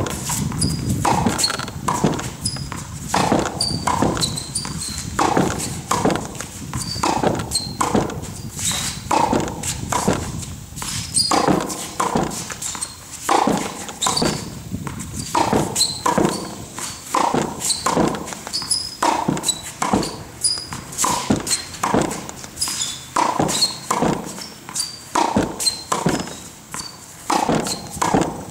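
Tennis ball struck back and forth with rackets and bouncing on a concrete court: a steady, unbroken rhythm of sharp hits and bounces in a short rally.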